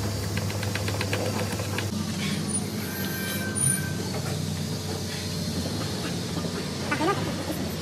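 Steady hum of workshop machinery with a quick run of light clicks in the first two seconds and a brief squeak near the end, as a glass pane is handled in a wooden door frame.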